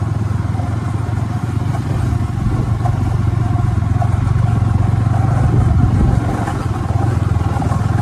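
Motorcycle engine running steadily while riding, heard from the pillion seat, with wind noise over the microphone. It gets a little louder over the first couple of seconds, then holds even.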